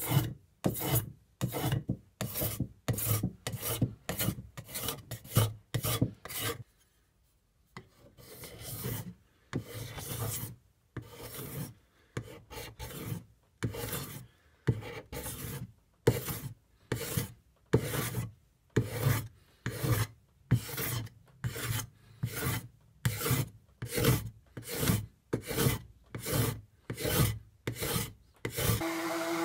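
Steel card scraper worked by hand along a wooden chair leg, stripping off its dark film-coat finish in short, regular scraping strokes, about two a second. There is a brief pause about seven seconds in.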